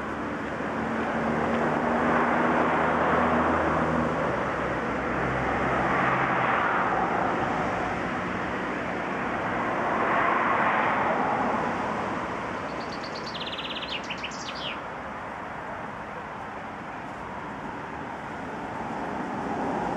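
Road traffic: vehicles passing one after another, the noise swelling and fading with each, with a low engine hum in the first few seconds. A short bird chirping comes in about two-thirds of the way through.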